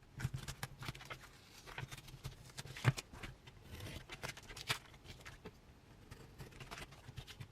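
Packaging being handled and unwrapped by hand: scattered light rustles, taps and clicks, with a couple of sharper snaps about three and four and a half seconds in.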